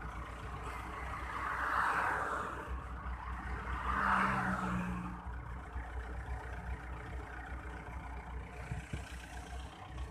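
Heavy diesel truck engines idling with a steady low throb, while traffic passes on the highway, swelling about two seconds and about four seconds in.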